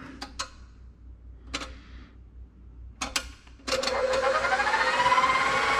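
A few clicks and knocks of a beater being fitted to a KitchenAid bowl-lift stand mixer, then about two-thirds of the way in the mixer's motor switches on and runs with a steady whirr, its pitch rising as it comes up to speed, turning a scraper-edged beater.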